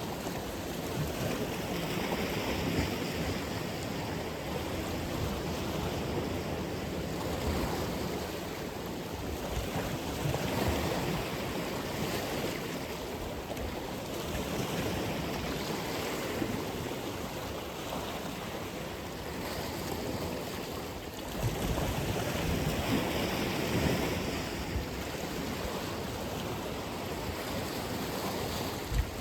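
Atlantic Ocean waves breaking and washing continuously on the shore as a dense, steady surf noise that swells with each wave every few seconds.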